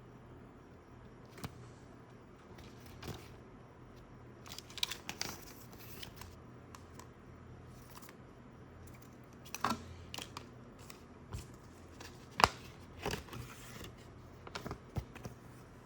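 Packaging being handled: scattered rustles, crinkles and short sharp clicks, the sharpest about twelve seconds in.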